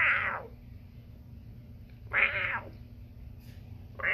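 Domestic cat meowing three times, each call short and about two seconds apart.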